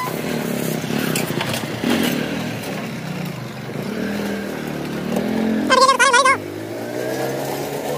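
Motorcycle engine running while towing a loaded cart trailer, its pitch rising and falling as it pulls away. About six seconds in, a loud, wavering high-pitched call lasting under a second rises over it.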